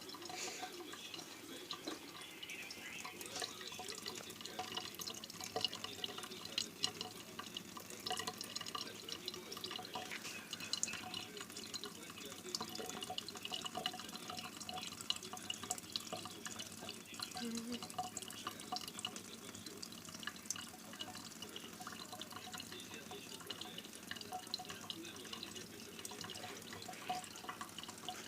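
Thin stream of water running from a tap into a sink, with many small drips and splashes as a cat drinks from the stream.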